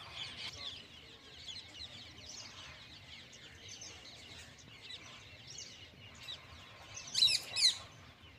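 Morning chorus of birds chirping, many short overlapping calls, with two louder, sharp calls about seven seconds in.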